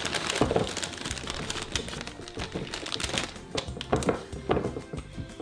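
Crinkly plastic bag rustling and crackling as fresh spinach leaves are pulled out by hand and pushed into a plastic jar, over background music.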